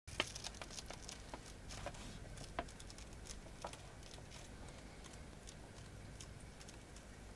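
Paper pages of a softcover book being leafed through by hand: a run of soft rustles and light ticks, busiest in the first few seconds, with a few sharper page snaps.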